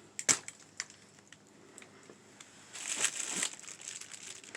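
Crinkling and rustling of plastic packaging and bags being handled while rummaging through dumpster contents. There are a few sharp clicks just after the start and a longer stretch of crinkling about three seconds in.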